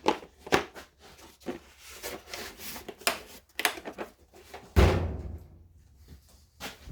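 Tools and a chainsaw being handled on a workbench: a string of light knocks, clicks and rubbing, with one heavier thump near the five-second mark.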